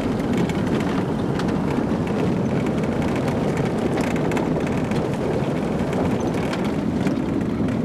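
Steady rumble of a car driving on a dirt road, heard from inside the cabin: engine and tyre noise.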